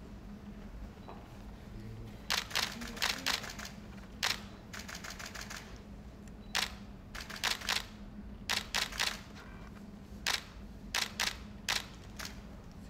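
Camera shutters firing in quick bursts of a few sharp clicks each, with pauses between the bursts, over a steady low hum.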